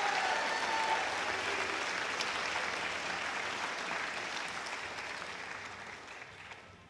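Audience applauding, fading out over the last couple of seconds.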